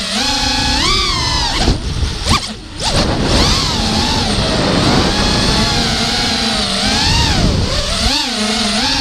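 The four T-Motor F40 2500kV brushless motors of a racing quadcopter, spinning DYS 5x4x3 props, whining in a pitch that keeps rising and falling with throttle. The whine drops off sharply with quick swoops about two and a half seconds in. The quad has a bent motor shaft, bad bearings and bent props.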